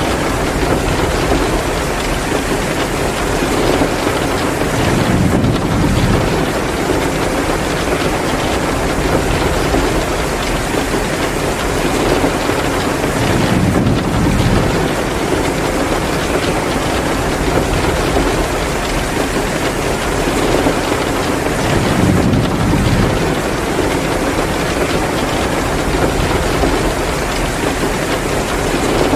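Heavy, steady downpour of rain, a dense even hiss, with a deeper rushing swell that comes back about every eight and a half seconds.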